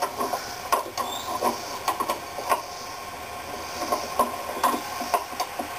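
Irregular knocks and clicks from a metal swing set frame as a small child climbs on it, about a dozen spread over several seconds.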